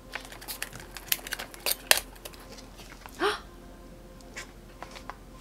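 Small paperboard box being opened by hand: a few light clicks and scrapes as the tuck flap is pried loose and lifted, the sharpest near two seconds in. A brief vocal "oh" follows a little after three seconds.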